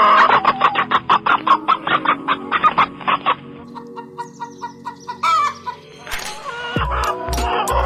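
Chicken clucking in a fast run of short clucks for about three seconds over background music, with one more call a little later. A steady music beat comes in near the end.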